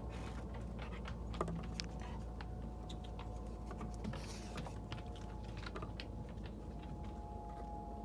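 Small rocks clicking and tapping against each other and on a wooden tabletop as a hand shifts and stacks them, a string of light irregular clicks with a couple of sharper knocks.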